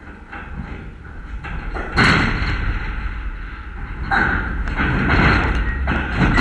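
A sudden loud thump about two seconds in, then a noisy stretch of shouting from the dugout and stands that swells again about four seconds in as the batter puts the ball in play. Wind rumbles on the microphone throughout.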